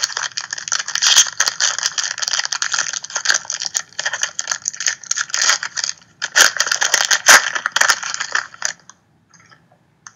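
Foil trading-card pack being torn open and crumpled by hand: a continuous crinkling crackle that breaks off briefly about six seconds in, then stops a second or so before the end.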